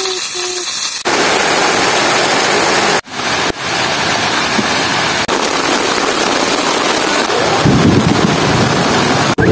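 Chicken sizzling in a frying pan for the first second, then heavy rain pouring steadily, cut into several short clips. Near the end the rain takes on a deeper rushing sound.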